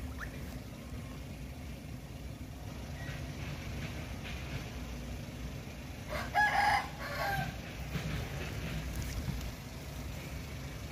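A rooster crowing once, about six seconds in, over a steady low hum.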